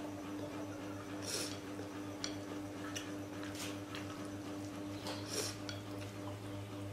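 Wooden chopsticks clicking and scraping against a ceramic bowl while eating, a few short clicks and three brief scrapes, over a steady low electrical hum.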